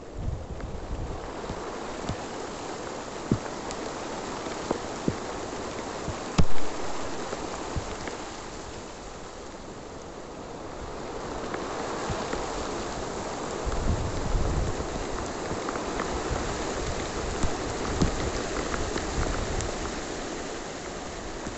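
Heavy shower rain of large drops pattering steadily on a maize field's leaves, with scattered sharp taps of single drops, the loudest about six and a half seconds in. A low rumble of wind on the microphone comes in briefly about two-thirds through.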